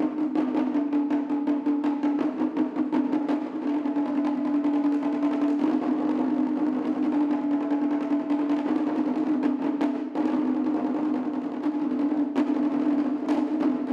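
Three shime-daiko, small tightly tuned taiko drums, struck with sticks in rapid, dense unison strokes, their heads ringing with a steady high pitch. A few sharper accented hits come near the end.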